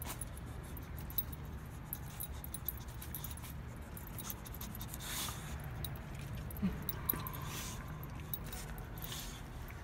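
A boxer dog licking and mouthing cotton candy on a stick: a run of small, quick wet clicks, with the metal tags on her collar jingling, over a steady low hum.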